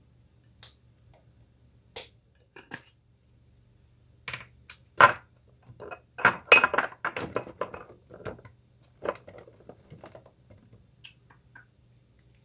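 Kitchen utensils and containers being handled: scattered knocks and clinks, coming thick and fast from about four to nine seconds in.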